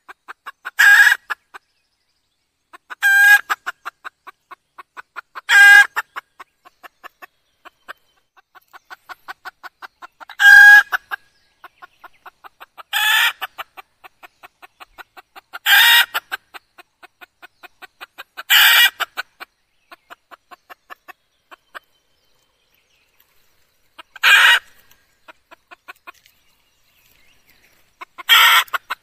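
Red junglefowl hen calling: nine loud, short calls spaced a few seconds apart, with soft, rapid clucking in between.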